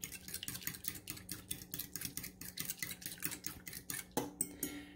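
Metal fork whisking egg and milk in a ceramic bowl, clinking quickly and evenly against the bowl, then stopping near the end.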